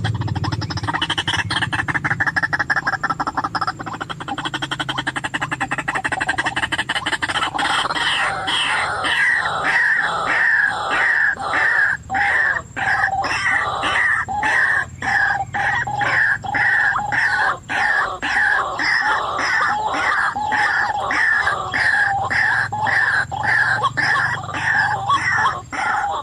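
White-breasted waterhen (ruak-ruak) calls: a jumbled run of notes, then, from about a third of the way in, a steady series of loud repeated notes at roughly one and a half to two a second.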